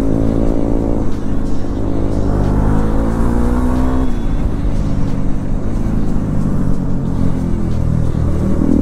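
Bajaj Dominar motorcycle's single-cylinder engine pulling hard on the road, its pitch climbing through a gear, dropping sharply at an upshift about four seconds in, then climbing again. Wind rushes across the microphone underneath.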